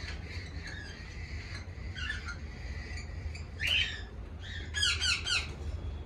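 Cockatiels in breeding cages squawking: scattered short, shrill calls, with a louder one midway and a quick run of three or four near the end.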